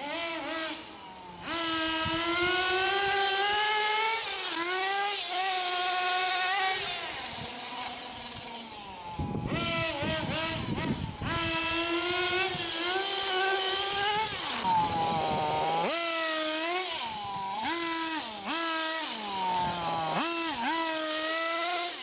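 Nitro Kyosho DRX RC rally car's small two-stroke glow engine, revving up and dropping back again and again as the car is driven around on tarmac. It has a high, buzzing note. There is a short noisier stretch about ten seconds in, when the engine note falls away.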